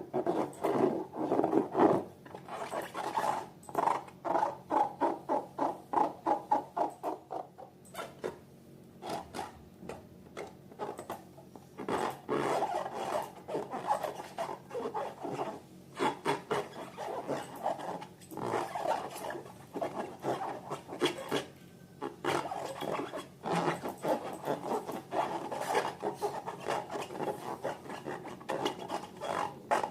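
Slime being worked by hand: a fast, uneven run of short squishing and rubbing strokes, in bursts with brief pauses.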